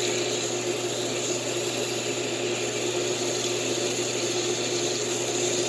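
Shower water running steadily during a dog's rinse, with a constant low hum under it.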